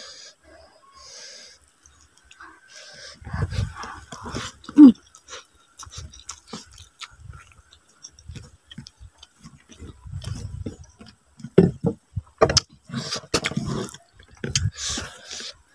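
Close-up eating sounds: chewing and lip smacks from a mouthful of rice and vegetables, with fingers scraping rice on a plate and scattered sharp clicks. A short loud pitched sound about five seconds in is the loudest moment, and the clicking gets busier in the last few seconds.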